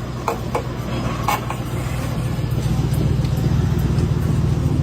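Train rolling along the track: a few sharp clicks in the first second and a half, then a low rumble that grows louder from about halfway through.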